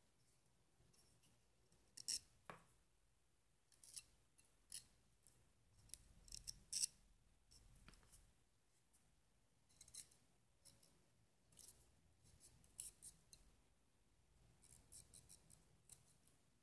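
Small knife cutting into banana peel: faint, short, crisp snicks and scrapes at irregular intervals.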